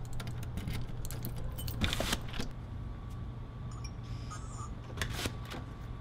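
Keys jangling and clicking as a backup key is worked in the key cylinder of a SMONET lever-handle smart lock, with a louder scrape about two seconds in and a few more clicks near the end, over a steady low hum.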